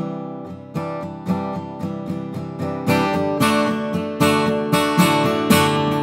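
Gibson J-45 acoustic guitar playing an instrumental passage. It starts with lighter picked notes, and from about halfway in it swells into louder, fuller strummed chords.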